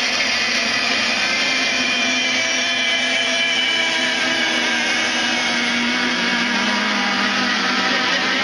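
Several radio-controlled racing boats running flat out together, their small motors making a steady, high, layered whine.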